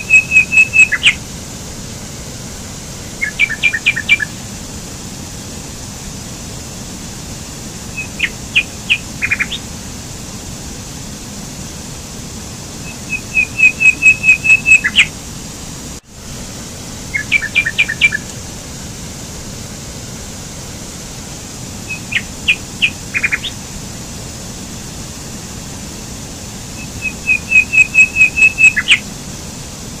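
A stream rushing steadily over rocks, with a small songbird singing short, loud phrases every few seconds: a quick run of high, even notes alternating with clusters of sharp chirps. The sound cuts out for an instant about halfway through, and the same sequence of bird phrases then repeats.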